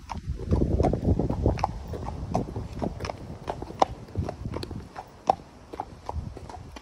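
A horse's hooves clip-clopping at a walk on a hard yard surface, about two to three steps a second. A low rumble on the microphone is loudest in the first couple of seconds.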